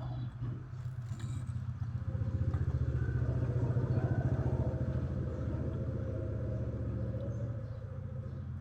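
A motor vehicle's engine rumble swelling to a peak about four seconds in and then fading, as it passes by.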